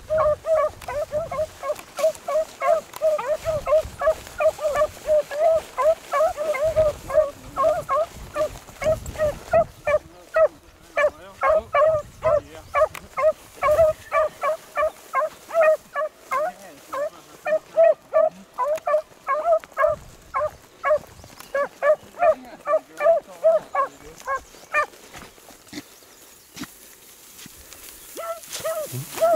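Beagles baying in quick, short barks, about three a second, as they run a rabbit's scent trail. The barking stops for a couple of seconds near the end, then starts again.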